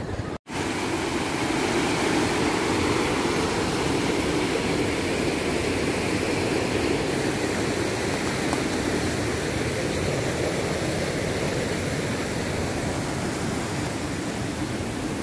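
Steady rushing noise, with a brief cut to silence just under half a second in.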